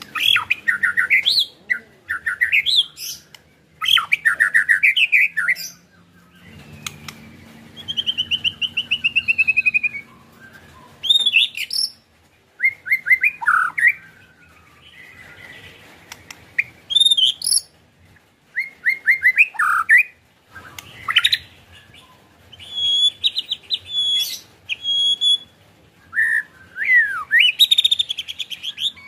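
White-rumped shama (murai batu) singing in separate phrases of fast sliding whistles and rapid rattling 'ketrek' runs, with short pauses between phrases.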